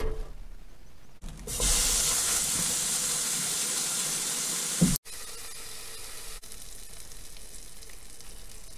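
A raw burger patty sizzling in a hot nonstick frying pan over a gas flame. The loud sizzle starts about a second in as the patty goes into the pan and stops abruptly around five seconds in, leaving a much quieter background.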